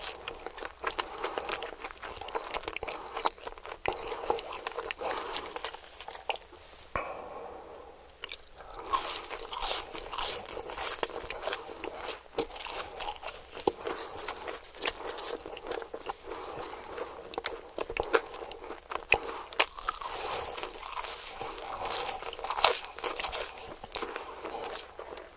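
Close-miked eating: crunchy bites and wet chewing of fried hash browns and chicken nuggets, a dense run of crackles that eases off briefly about a third of the way in.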